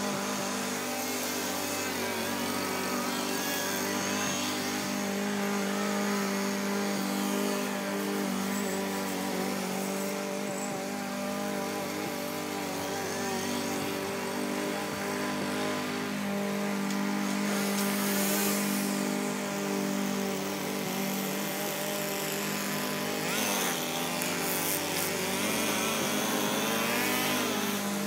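Small single-cylinder engine of a walk-behind gas lawn mower running steadily at full throttle while cutting grass, a constant drone with only slight rises and falls in level.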